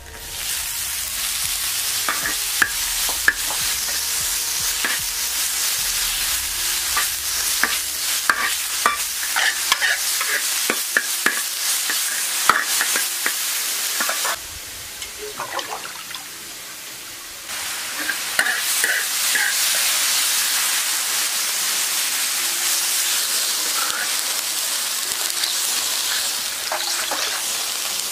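Oyster mushrooms hitting hot oil and minced garlic in a wok, sizzling loudly as they are stir-fried, with the spatula clicking and scraping against the wok. The sizzle drops away for about three seconds midway, then comes back just as loud.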